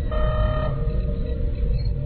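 Star Trek starship bridge ambience sound effect: a steady low engine hum under a soft held tone, with one computer chime of several stacked tones lasting about half a second near the start.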